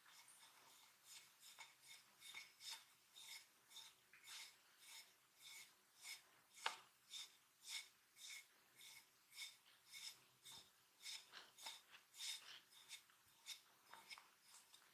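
Massage strokes: hands rubbing over skin in quick, faint, rhythmic passes, about three a second, with one sharper stroke near the middle.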